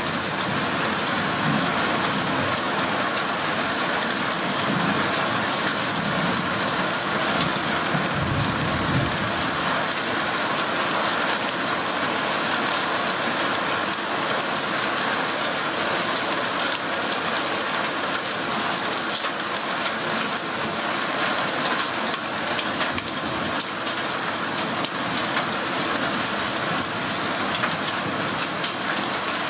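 Heavy storm rain pouring down in a steady, dense patter.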